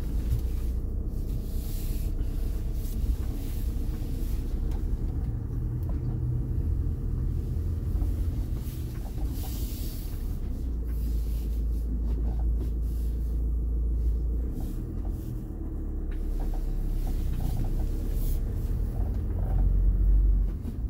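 Camper van driving, heard from inside the cab: a steady low rumble of engine and road.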